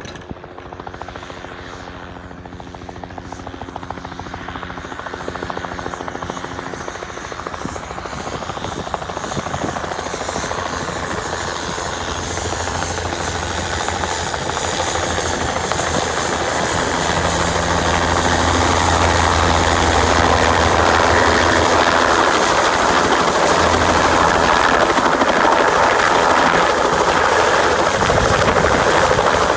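Bell 206L LongRanger helicopter approaching, its rotor and turbine growing steadily louder as it comes in, then holding loud and steady in a low hover over the landing pad for the last several seconds.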